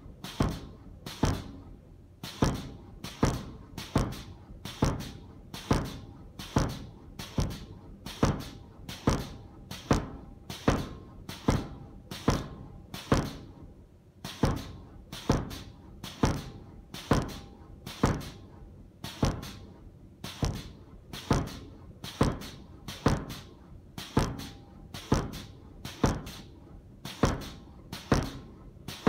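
Homemade pneumatic forging air hammer, a 69 kg ram on a railway-line anvil, striking a red-hot 1.75 inch 1020 steel round bar in a steady run of heavy blows, about one or two a second, with a brief pause about fourteen seconds in.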